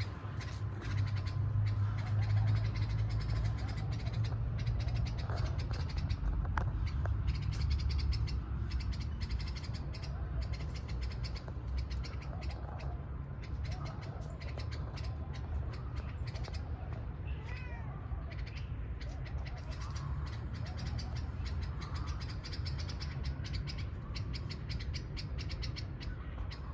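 Birds calling outdoors in a tree, short repeated calls scattered through the stretch, over a steady low rumble.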